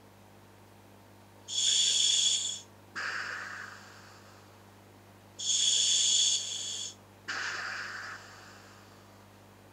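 Breathing through a scuba regulator attached to a hooded gas mask: two breaths about four seconds apart, each a loud, hissing rush of air through the demand valve lasting about a second, then after a short pause a softer exhale hiss that fades away.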